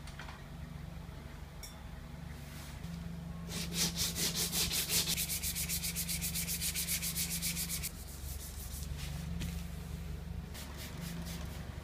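Hand sanding of body filler on a cracked plastic car bumper: quick back-and-forth rasping strokes of abrasive paper. The strokes are loudest and fastest from about a third of the way in to about two-thirds, and start again near the end, over a steady low hum.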